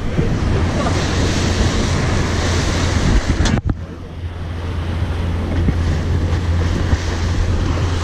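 Wind buffeting the microphone and water rushing past the hull of a boat under way, over a steady low drone from the boat's motor. A sharp knock comes about three and a half seconds in, and the rush drops away briefly before building back up.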